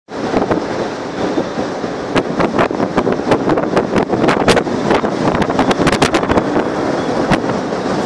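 Strong sea wind blowing over the microphone, heard as a dense, loud rush with frequent irregular crackles and pops.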